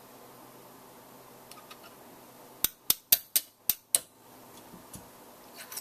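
Six quick, sharp taps of a small hammer on a steel pin punch, about four a second, driving the trigger pin out of an AR-15 lower receiver. Light clicks of small parts come before the taps and near the end.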